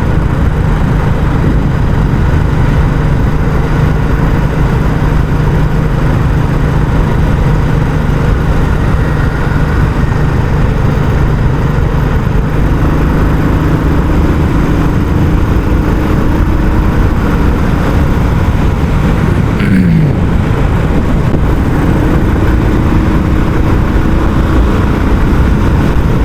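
Royal Enfield Classic 350's single-cylinder engine running through its stock exhaust while riding, a continuous steady beat. The engine note changes about halfway through and dips briefly about three-quarters of the way in.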